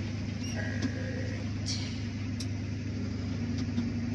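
Tractor engine running steadily while driving across a harvested field, heard inside the cab as a constant low drone. A few faint clicks and a brief faint tone come over it in the first half.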